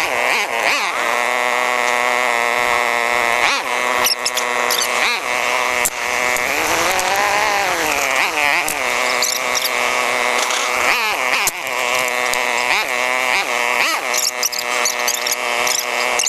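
ATV engine sound played back sped up, so it comes out as a high, buzzy whine whose pitch keeps rising and falling with the throttle, with one long rise and fall about seven seconds in.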